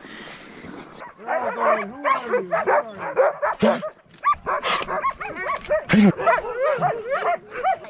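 A yard full of sled dogs (huskies) barking, yipping and whining all at once, many rising-and-falling calls overlapping, starting about a second in.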